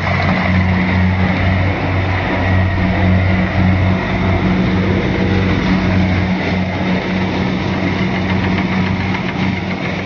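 Kubota crawler combine harvester running while cutting rice: a loud, steady engine drone with a low hum and a haze of machinery noise over it.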